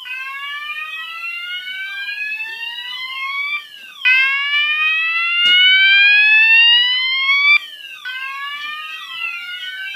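Fire alarm sounders set off by a smoke detector during a test. A KAC sounder on slow whoop gives long rising sweeps, about three and a half seconds each, restarting with a jump back down. Roshni sounders on DIN tone repeat short falling sweeps over them. The alarm starts suddenly at the beginning, and the middle whoop is the loudest.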